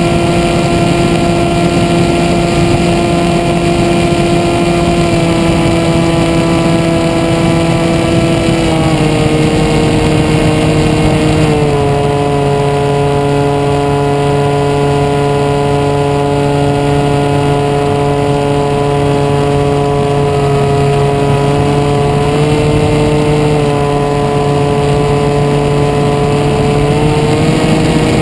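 Skywalker FPV plane's electric motor and propeller droning in flight, heard from the onboard camera, with the pitch dropping in two steps about a third of the way in and rising again in steps near the end as the throttle changes.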